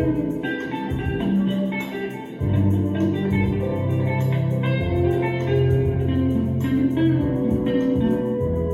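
Instrumental music with plucked guitar-like notes over a bass line, with a brief dip about two seconds in.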